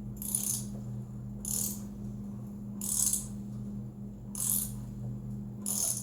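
Helicoil thread tap being worked by hand into a spark plug hole in a mower's cylinder head, cutting new threads. Short metallic clicking strokes come about every second and a half.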